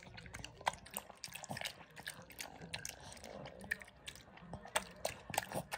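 Dog eating a bowl of dried-pollack soup: irregular wet lapping and chewing with sharp little clicks and smacks.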